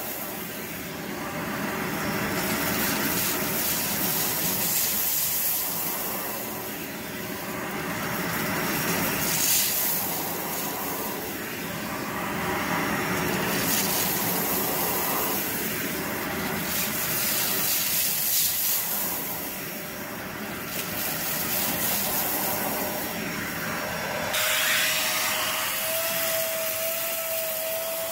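Vacuum cleaner running with a crevice tool worked back and forth over plush carpet, the suction noise swelling and fading with each stroke. About 24 seconds in the sound changes suddenly and a steady whine joins in, with a small turbo brush head on the carpet.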